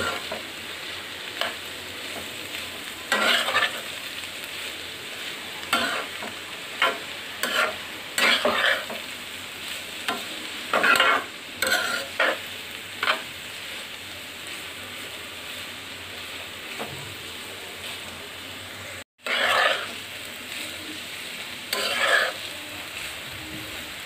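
Mixed vegetables sizzling as they fry in a pan, stirred by hand with irregular scraping strokes every second or two. The sound cuts out for an instant about two-thirds of the way through.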